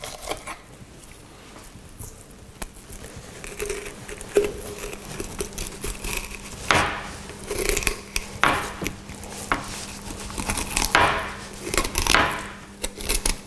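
Filleting knife drawn along a zander's backbone, crunching and scraping over the bones in a run of strokes that grow louder in the second half.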